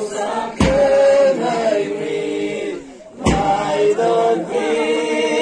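A group of people singing a song together in unison, in held notes. A heavy thump cuts in twice, less than a second in and again past the middle.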